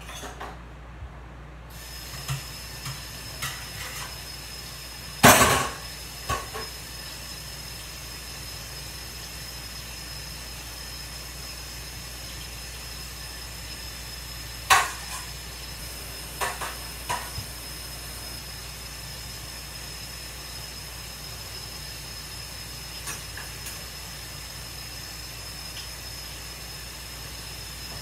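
Dishes being washed and handled at a kitchen sink: a few sharp clinks and clacks, the loudest about five seconds in and another near fifteen seconds, over a steady hiss.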